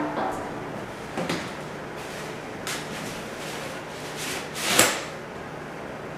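Folding fabric umbrella being opened by hand: a rustling swish that builds to a sharp snap as the canopy pops open, a little before five seconds in and the loudest sound here. A few lighter rustles and knocks come before it.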